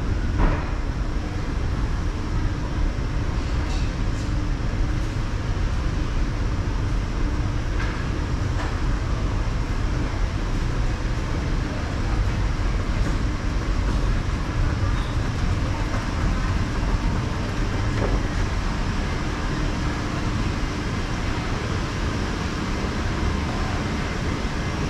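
Steady low rumble and hum of a moving escalator with MRT station ambience around it.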